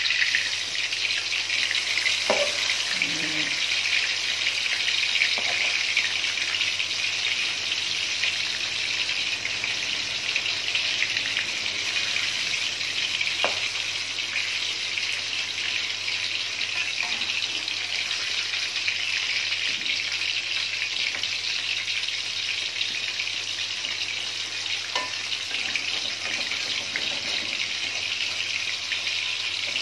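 Battered banana fritters sizzling steadily in hot oil in a wok, nearly cooked through, with a few light clicks of a spatula against the pan.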